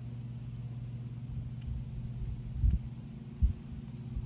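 Insects chirping steadily in the background, a high continuous trill with a fainter pulsing chirp, over a steady low hum. Two dull low thumps come a little under a second apart, past the middle: handling knocks as the action cameras are handled.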